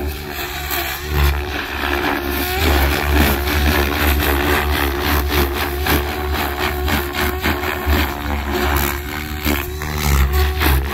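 Electric 3D RC helicopter (XLPower Specter with an Egodrift brushless motor) flying aerobatics: the rotor blades whoosh and chop in repeated surges and the motor whine bends up and down as the pitch loads change, over a heavy low rumble.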